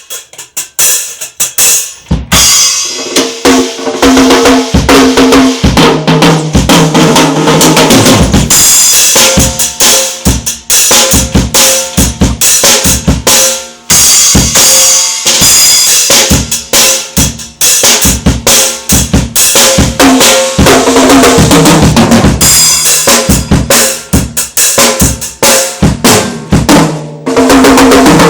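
Drum kit played continuously in a fast groove: bass drum, snare with rimshots and cymbals, over steady pitched low notes that change every few seconds.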